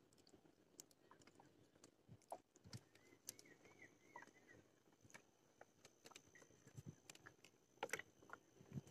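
Near silence with faint, scattered clicks and taps of hands handling a spinning rod, reel, line and float, a few more together near the end; a faint steady high tone sits under the second half.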